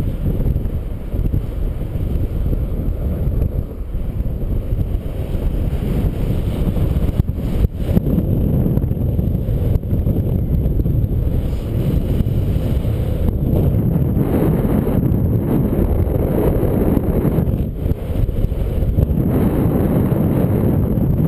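Airflow buffeting the camera microphone during paraglider flight: a steady, loud wind rumble that grows stronger in the second half, with a couple of brief dropouts about seven to eight seconds in.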